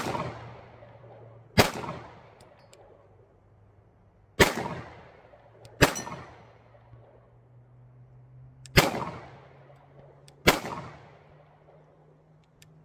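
Sig Sauer P320 9mm pistol fired in slow single shots, five in all, about one and a half to three seconds apart, each sharp crack trailing off in a long echo.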